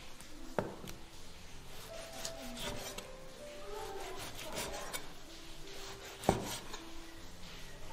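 Cleaver slicing through raw pork belly on a wooden chopping board, the blade rasping through the fat in short strokes. Two sharp knocks come when the blade strikes the board, just after the start and about six seconds in.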